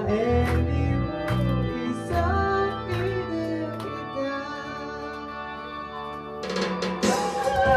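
A group of performers singing together over a strummed guitar. The song thins out and quietens partway through. Near the end a burst of noise and voices comes in.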